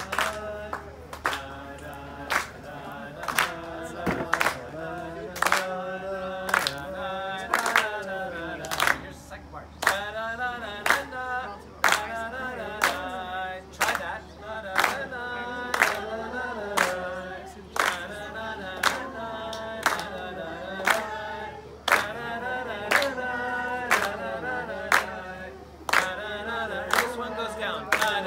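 A group of people singing a Jewish wedding melody together, clapping their hands on a steady beat of roughly three claps every two seconds.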